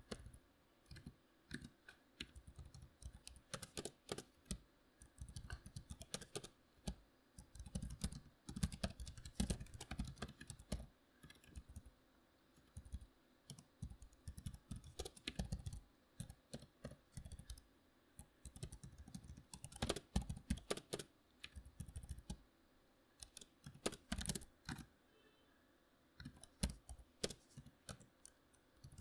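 Membrane computer keyboard being typed on, natural coding-speed keystrokes in irregular bursts broken by short pauses.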